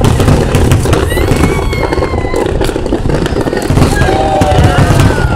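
Aerial fireworks in a rapid, continuous barrage: shell bursts and crackling one after another with no break.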